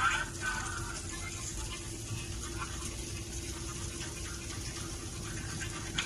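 Steady road and rain noise inside a car's cabin while driving on a wet highway in heavy rain: a constant low rumble with a steady hum.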